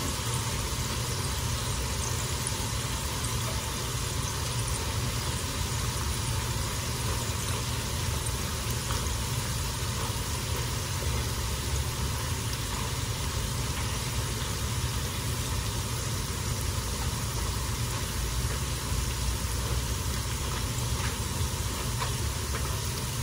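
Oil sizzling steadily in a pan as chips deep-fry, with a low steady rumble underneath.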